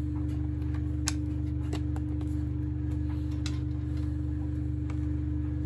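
A few light plastic clicks as small plastic glides are pressed into the underside of a plastic cordless floor sweeper, over a steady low machine hum.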